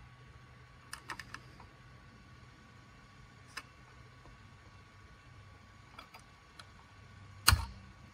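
Light scattered clicks and taps of a small hand tool and a 4-pin wire connector being worked onto a circuit board, with one louder knock near the end.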